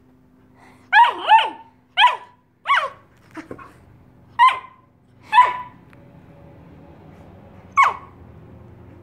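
A dog giving a series of about seven short, high barks, each sliding down in pitch, spaced irregularly from about a second in until near the end.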